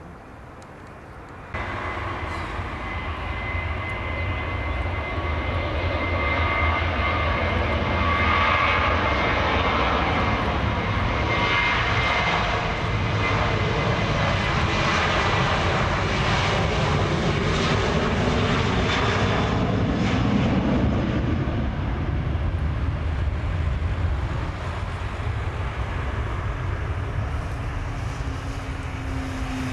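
Luxair Boeing 737's twin jet engines running loud as the airliner rolls along the runway past and away, a steady high whine over a deep rumble. It comes in suddenly about a second and a half in.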